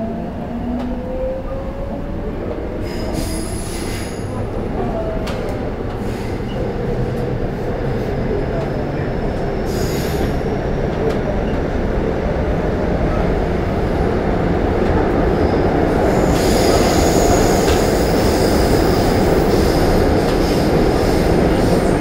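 Seoul Metro Line 1 subway train running between stations, heard from inside the carriage: a steady rumble of wheels and running noise that slowly grows louder. High-pitched wheel squeal comes in twice briefly and then carries on almost unbroken through the last several seconds.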